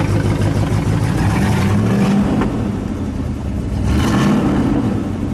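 Factory 440 V8 of a long-parked 1970 Plymouth Superbird running, revved up and let back down twice, about a second in and again near four seconds.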